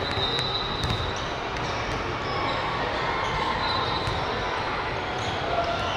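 Basketball bouncing on a hardwood gym court a few times in the first second or so, over the steady background noise of a large, busy sports hall.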